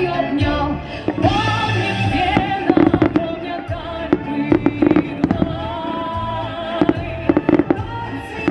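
Fireworks bursting in a salute display: a series of sharp bangs, several in quick clusters, over continuous music with singing.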